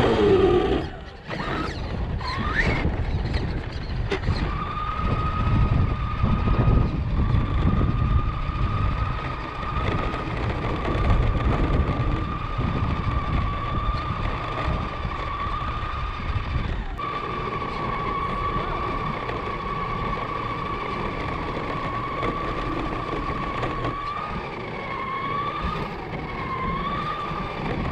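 Remote-control car driving on pavement: a steady high motor whine over a rough low rumble of tyres on the road. About two thirds of the way through the rumble drops away while the whine carries on, wavering slightly near the end.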